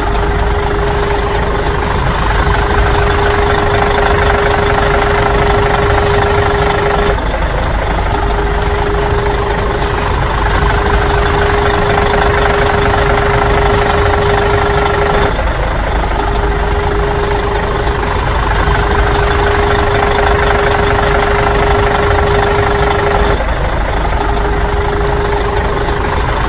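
Steady engine running at idle, a loud dense rumble with one held tone, repeating in identical stretches about every eight seconds like a looped engine sound effect.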